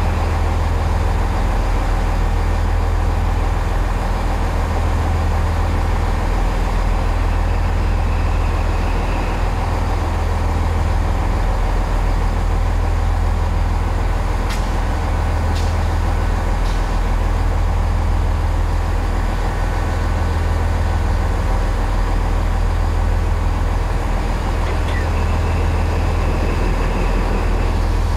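Steady low rumble of diesel train engines running at the station, with a few faint clicks about halfway through.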